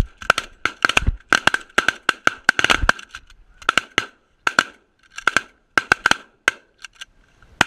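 Rapid, irregular series of short goose honks and clucks, about twenty sharp calls on a high, steady pitch.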